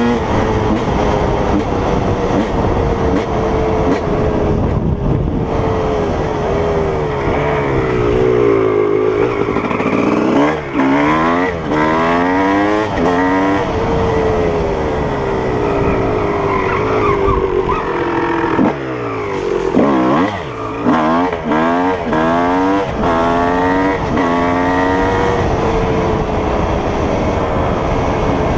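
Dirt bike engine revving hard under a rider and shifting up through the gears, its pitch climbing and dropping over and over, with quick runs of rev-and-shift in the middle of the stretch.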